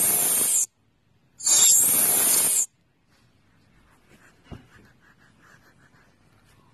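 A Snapchat lens sound effect plays twice, loud and hissy with a rising-then-falling sweep. Each play lasts about a second and starts and stops abruptly, the second about a second and a half in. After that only faint small sounds remain.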